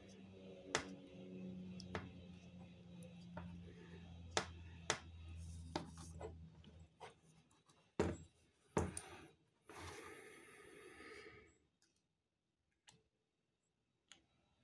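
Small clicks and rubbing from handling the parts of a Littmann stethoscope: ear tips pushed onto the metal ear tubes and the steel chestpiece and its diaphragm turned in the hands. The sharp clicks come irregularly, under a faint low hum that fades out about halfway, and a short rustle comes about ten seconds in.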